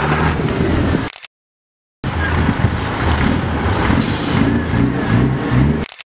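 DAF tractor unit's diesel engine running as the truck drives slowly. The sound cuts to silence for under a second about a second in, and again just before the end.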